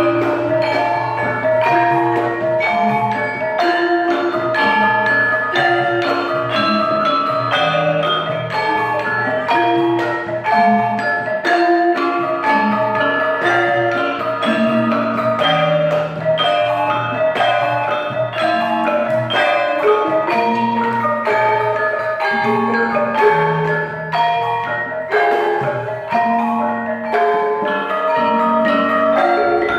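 Javanese gamelan ensemble playing a lancaran: bronze gong-chimes and metallophones struck in a steady, busy pattern of ringing notes, led by kendang drumming, with low gong strokes underneath.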